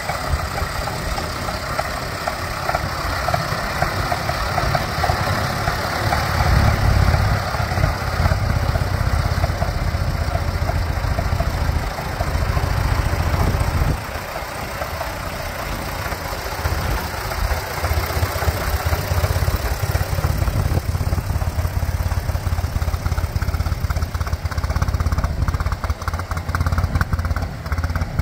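Massey Ferguson 135 tractor engine running steadily as the tractor is driven slowly past, briefly quieter about halfway through.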